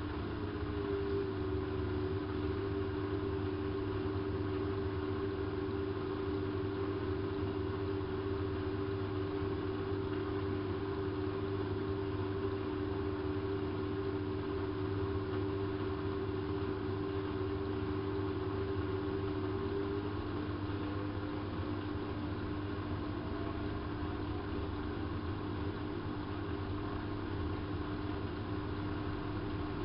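hanseatic HWM814A3D washing machine running, its drum motor giving a steady whine over a low hum. About two-thirds of the way through, the whine rises steadily in pitch as the motor speeds the drum up.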